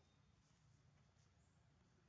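Near silence: a faint steady low hum with light hiss.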